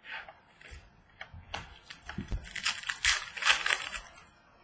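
Glossy trading cards being handled at a table: a few light taps and clicks, then a longer rustle of card stock sliding against card stock from about two and a half to four seconds in.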